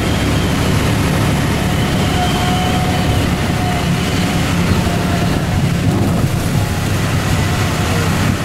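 Light aircraft's piston engine and propeller running with a steady drone, heard from inside the cabin while the plane rolls along the runway.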